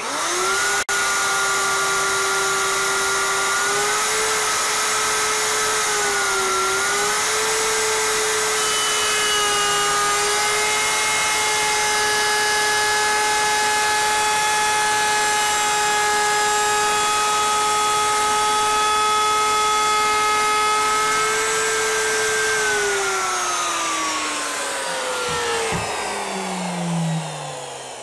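Router with a bearing-guided flush trim bit starts up with a quick rising whine, then runs at a steady high whine while trimming one board's edge flush with the board below, its pitch dipping briefly under the load of the cut. Near the end it is switched off and winds down in a long falling whine, with a light knock just before it dies away.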